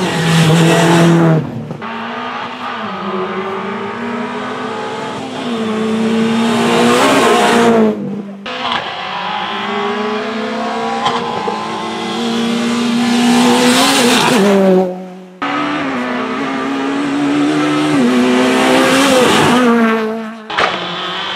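Rally car engines under hard acceleration. The pitch climbs through each gear and drops at each shift. The sound swells loud several times as cars come past and breaks off abruptly between passes.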